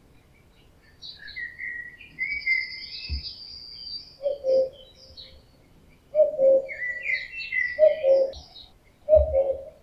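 Common cuckoo giving its two-note 'cu-koo' call, the male's breeding-season song, four times about every one and a half to two seconds, starting about four seconds in. Other songbirds chirp and twitter behind it.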